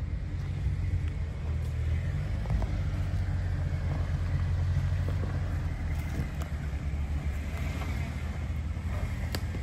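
Vehicle engine running at low revs with a steady low rumble, as for an off-road vehicle crawling slowly over a dirt trail. There is a single sharp click near the end.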